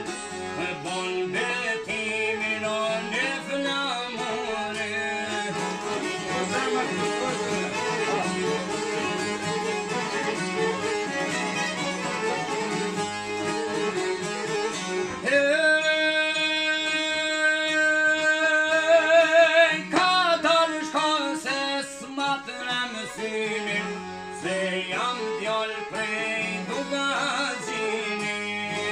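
Male singing with plucked long-necked lutes in a Kosovo Albanian folk song. Partway through, the singer holds one long, louder note with vibrato before the strumming takes over again.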